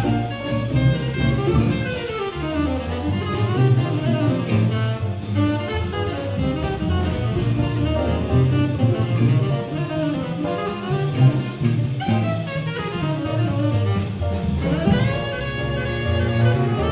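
Large jazz ensemble playing a cool-jazz arrangement: saxophones, clarinets and brass in ensemble lines over double bass, bowed strings and a steady cymbal beat. A run of horn lines falls early on and climbs again near the end.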